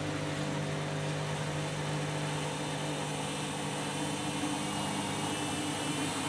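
Candy washing machine going into a spin with an overloaded, sudsy load: a steady motor whine with several held tones over a hiss from the drum. The load is fairly balanced.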